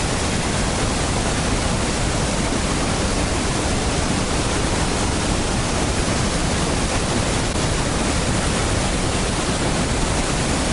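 Roar of the American Falls at close range: a loud, steady rush of water crashing onto the rocks, spread evenly from low to high.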